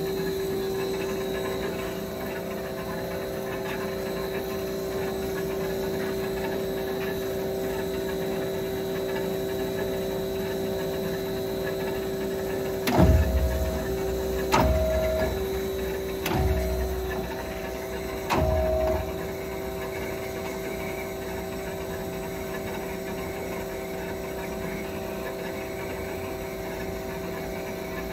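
HEM VT100HLM-60 vertical bandsaw running idle, a steady machine hum with no cut being made. Midway through come four thumps, about two seconds apart.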